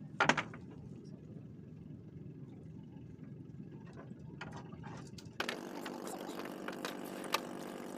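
Wooden outrigger canoe being paddled over calm water: a low wash of water with a sharp knock about a quarter second in and a few lighter clicks. About five seconds in, a steady low hum starts abruptly and runs on under further clicks.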